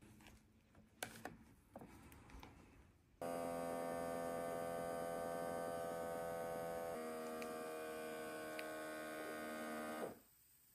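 Beurer upper-arm blood pressure monitor's small air pump inflating the cuff, after a few light clicks. It is a steady hum that starts about three seconds in, drops slightly in pitch about halfway through as the cuff pressure climbs, and cuts off suddenly near the end once the cuff is fully inflated.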